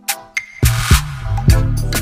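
Background electronic dance music with sharp drum hits. A deep bass line and a louder hit come in about halfway through.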